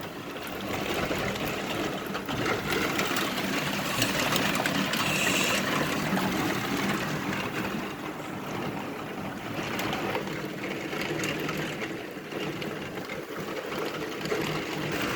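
Rain falling steadily: an even hiss of water dense with small drop ticks, over a faint steady low hum.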